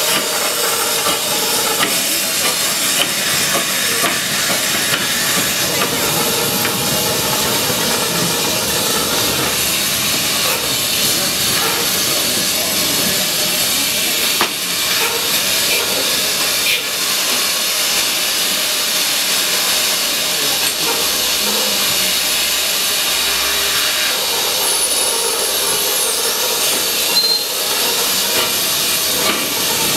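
Steady loud hiss of steam venting from a 15-inch gauge Romney, Hythe & Dymchurch Railway steam locomotive.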